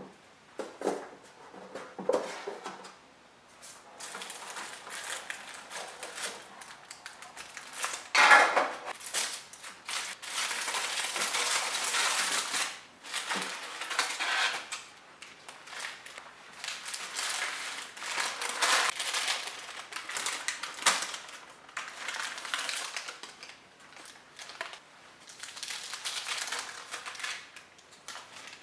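Kitchen handling sounds: sharp clinks and knocks of utensils and dishes, then longer stretches of rustling, scraping noise.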